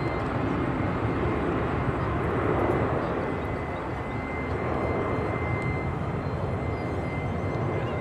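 Airbus A321-231 airliner's twin IAE V2500 turbofan engines at climb thrust, heard from the ground as a steady rushing jet noise that slowly fades as the plane climbs away, with a thin, steady high whine above it.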